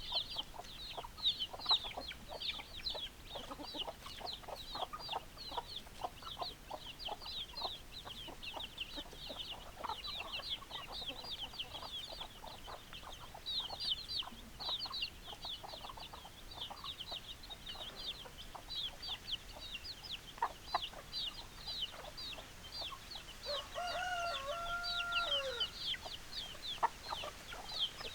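Chickens clucking under a constant stream of quick, high chirps, with a rooster crowing once near the end.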